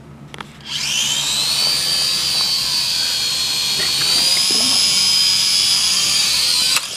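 Small quadcopter drone's motors and propellers whining at a high pitch. The whine rises quickly as the motors spin up about a second in, holds steady, and cuts off suddenly near the end.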